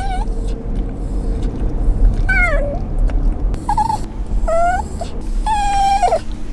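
Italian greyhound whining and crying in a series of about five high-pitched cries, some sliding down and some rising, with a longer held cry near the end. A steady low rumble from the car runs underneath.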